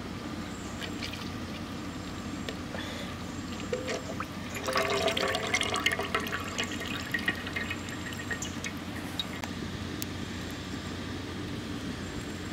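Cooking oil poured from a plastic jug into a wide aluminium kadai, trickling and splashing into the oil already pooled in the pan. It is loudest for a couple of seconds about five seconds in.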